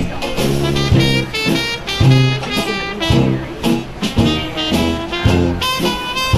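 Swing-style jazz background music with brass horns and a steady beat.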